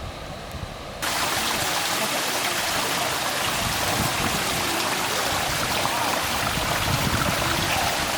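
Rushing water: a loud, steady hiss that cuts in abruptly about a second in.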